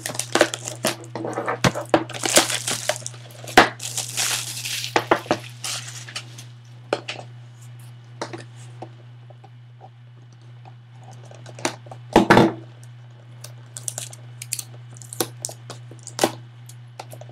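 Plastic shrink wrap being torn and crinkled off a sealed cardboard box of trading cards, in bursts through the first five seconds or so. Then scattered clicks and rustles of cardboard being handled, with a louder burst about twelve seconds in, over a steady low hum.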